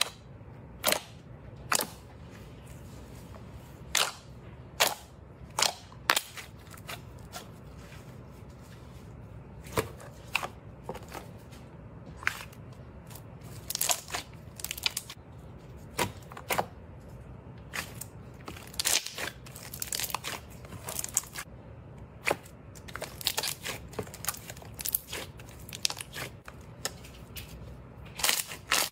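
Slime being pressed and squeezed by hand, giving sharp, irregular clicks and pops as trapped air bursts, sometimes several in quick succession.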